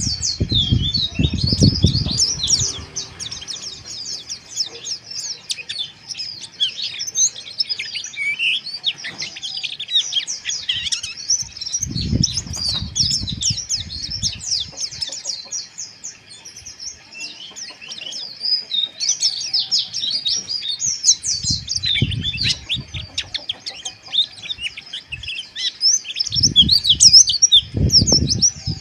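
Several white-eyes (pleci) twittering rapidly and non-stop in dense, high chirps, the fast ngeriwik chatter. Brief low rumbles come through four times: at the start, about 12 seconds in, about 21 seconds in and near the end.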